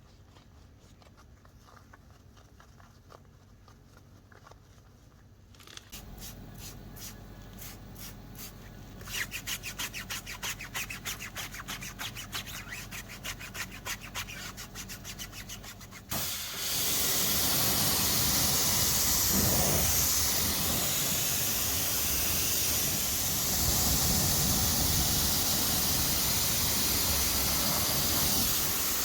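Water spraying from a pressure washer onto a car: a loud steady hiss starts suddenly about sixteen seconds in. Before it, a machine starts running with a low hum and a rapid even ticking that gets louder partway through.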